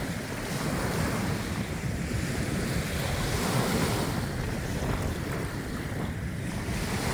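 Lake waves washing onto a beach, with strong wind buffeting the microphone in a steady low rumble.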